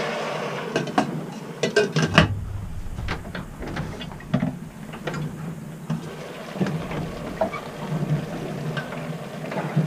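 Water poured from a steel kettle into a cooking pot trails off at the start. Then comes clatter of cookware on the stove: metal kettle, pot lid and utensils clicking and knocking, a quick run of clicks in the first two seconds and scattered knocks after, over a steady low hum.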